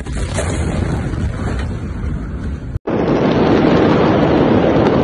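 Steady rushing noise with a low rumble in the aftermath of the Beirut port blast, much like wind buffeting the microphone. About three seconds in it breaks off for an instant and a louder, denser rush takes over.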